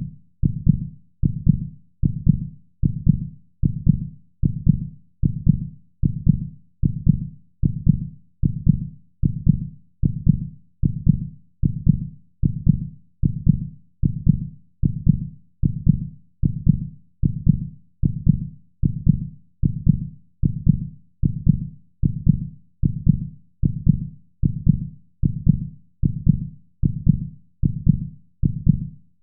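Heartbeat sound: deep, low thuds in a steady, even rhythm of a little more than one beat a second.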